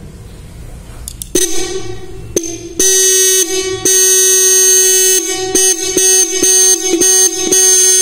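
Motorcycle electric disc horn sounding off a battery in repeated blasts, switched on and off by touching its wire to the terminal: a weak, faltering tone about a second and a half in, then a loud steady tone from about three seconds, broken by several short gaps. Its cover plate has been replaced with the aluminium plate from an LED bulb to give it a different sound.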